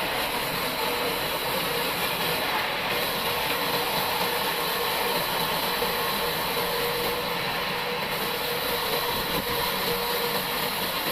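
Bandsaw mill running steadily, its blade sawing through a dry log: a continuous mechanical noise with a faint steady whine.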